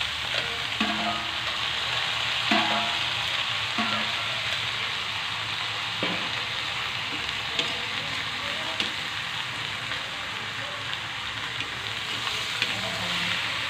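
Squid pieces sizzling in a hot wok. A metal spatula turns them and clinks against the pan several times, with a louder clank at the very end.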